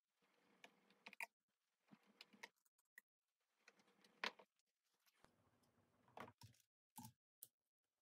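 Faint plastic clicks and taps from handling the underside of an HP Compaq laptop: screwdriver work on a back screw, then the battery pack being set into its bay. Several sharp clicks stand out, the loudest about halfway through.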